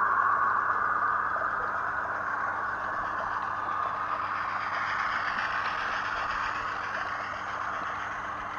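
Large-scale garden railway model of a blue LNER A4 streamlined locomotive hauling coaches along outdoor track: a steady rushing rattle of wheels on rail, slowly fading.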